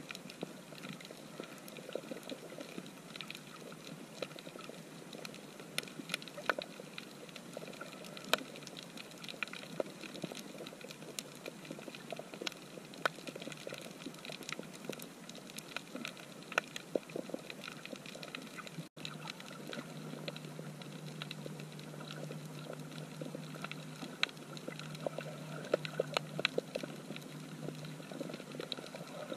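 Underwater coral reef ambience picked up by a camera in its housing: a steady hiss scattered with sharp clicks and crackles. About two-thirds of the way through the sound drops out for a moment, then a steady low hum joins the hiss.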